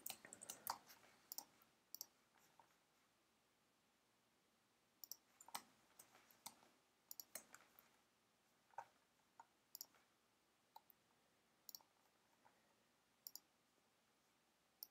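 Quiet computer mouse clicks, sharp and short. A quick flurry comes in the first second and a half, then single and paired clicks follow every second or so after a short pause.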